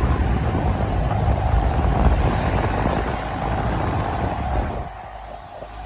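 A brand-new 2023 4-ton TGM central air conditioner outdoor unit with an LG scroll compressor, running with a loud, steady low rumble and its fan's airflow. The sound drops off about five seconds in.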